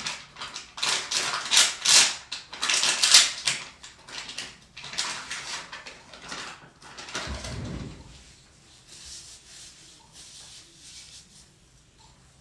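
Scratchy rubbing and rustling, close by and in irregular strokes, loud for the first few seconds, then a dull thump about halfway and fainter rubbing after it.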